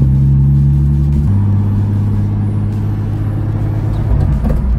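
BMW M54B30 3.0-litre straight-six of a 2001 E46 330ci running steadily under light load while driving, heard from inside the cabin, on its first break-in miles after a full rebuild. About a second in the engine speed drops and holds steady at the lower pitch.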